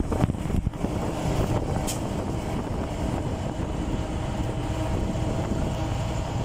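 Vintage bus on the move, with a steady rumble of engine and road noise and a faint whine over it.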